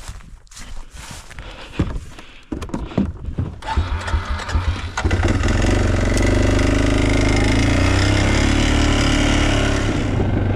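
A few knocks and handling sounds, then about five seconds in a four-wheeler (ATV) engine starts and runs steadily at idle.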